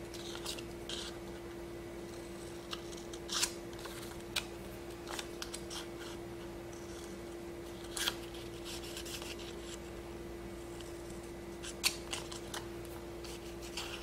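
Scissors snipping through adhesive hanji paper, trimming its corners in a dozen or so short, irregular cuts. A faint steady hum runs underneath.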